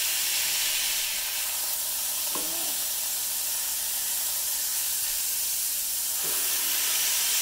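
Ground-beef patties and onions sizzling steadily on a hot electric flat-top griddle as the patties are smashed flat with a cast-iron burger press. The sizzle gets a little louder about six seconds in.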